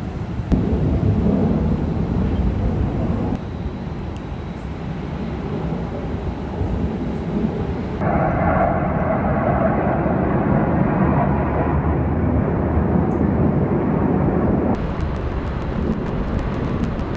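Aircraft engine noise: a loud, continuous rumble that changes abruptly several times and turns brighter for a few seconds in the middle.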